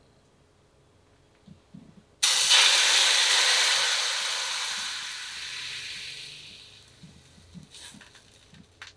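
Dashi stock poured into a hot frying pan, sizzling and hissing as it hits. The sizzle starts suddenly about two seconds in and dies away over about five seconds as the pan cools.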